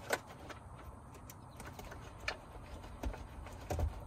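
Scattered small plastic clicks and light knocks as wiring connectors are worked loose from a car's CD and Bluetooth module. A few dull thumps come near the end.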